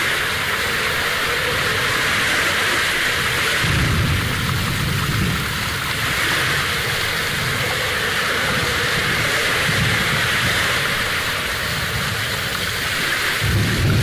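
Steady rushing of a small forest stream flowing over rock, with low rumbles about four seconds in and again near the end.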